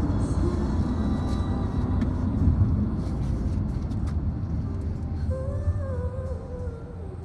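Road and engine noise heard from inside a moving car: a steady low rumble that slowly fades as the car slows down.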